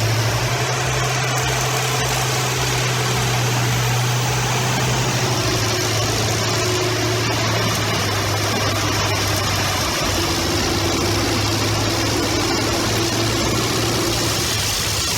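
A machine's engine running steadily, with a constant low hum under a dense mechanical hiss.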